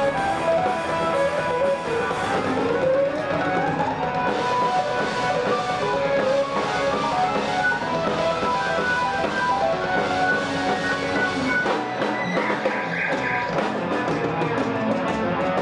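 A rock band playing with electric guitars, bass, keyboard and drum kit. About two seconds in, a note glides upward for around two seconds, and the low end of the bass and drums thins out about twelve seconds in.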